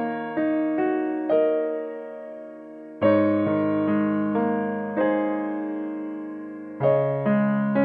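Background piano music: gentle chords and notes struck and left to ring out and fade, with a fuller chord about three seconds in.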